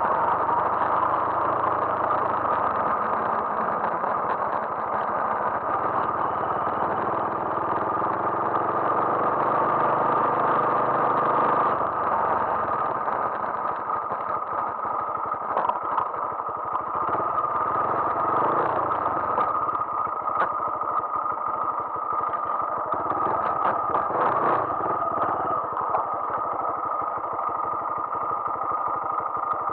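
Honda MSX125's small single-cylinder four-stroke engine running steadily under way. Short knocks and rattles come in the second half as the bike rides over rough ground.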